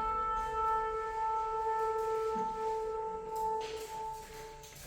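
Recorded trumpet blast of the kind played as the rapture's last trumpet: one long, steady horn-like note held on a single pitch, fading out near the end.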